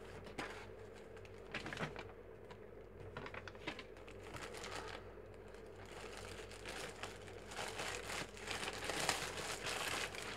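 Shipping bag crinkling and rustling in uneven bursts as it is handled and the shirt is pulled out of it, busier toward the end.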